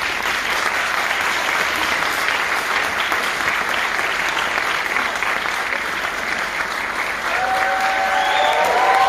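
Audience applauding, a dense clatter of many hands clapping that begins just as the last note dies away. About seven seconds in, voices rise above the clapping, calling out.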